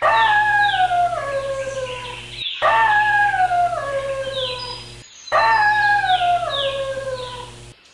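Wolf howling: three long howls, each falling in steps from a high to a lower pitch over about two and a half seconds, with short breaks between them. The three howls are identical in shape, the same howl repeated.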